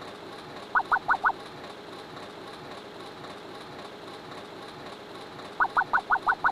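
Cartoon sound effect of quick, squeaky rising chirps, about six a second. Four come about a second in and another run starts near the end, over a steady background noise.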